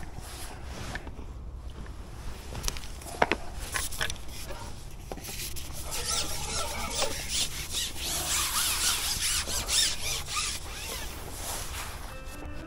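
Fishing pole squeaking as it rubs and slides over its pole rest, with a sharp click about three seconds in; the squeaking is loudest from about six to eleven seconds in.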